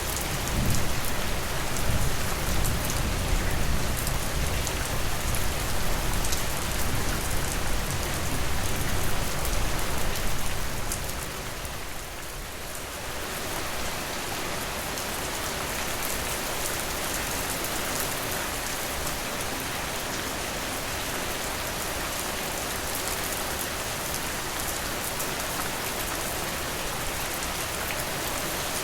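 Steady, continuous rainfall hissing evenly, with a low rumble underneath for roughly the first ten seconds that fades away; the rain carries on steadily afterwards.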